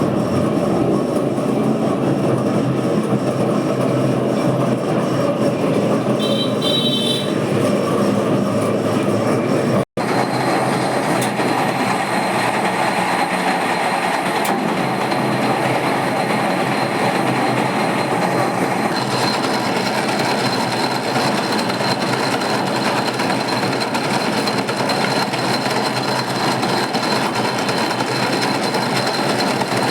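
Machine tool running steadily with a continuous rattling clatter, broken for an instant about ten seconds in. A thin high whine joins the noise about nineteen seconds in.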